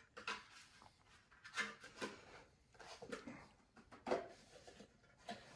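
Hard plastic parts of a collectible helmet display stand being handled and fitted together: a handful of scattered clicks and knocks, the loudest about four seconds in.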